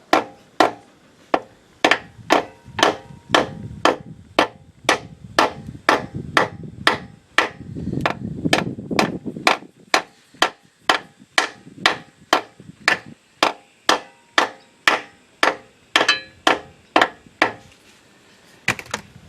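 Hammer tapping a new double-lip oil seal into a Triumph 2500 gearbox housing: short, even strikes about two a second, with a brief pause near the end before one more.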